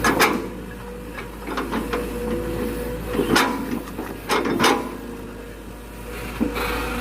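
Excavator engine running steadily, with four sharp knocks of rubberwood logs being handled: one right at the start, one about midway, and a quick pair shortly after.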